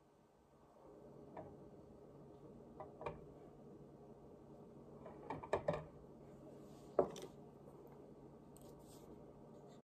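Plastic sports-drink bottles being set down on and lifted off a kitchen scale's metal platform: a few light knocks and clunks, a cluster of them about five and a half seconds in and the sharpest about seven seconds in, over a faint steady hum.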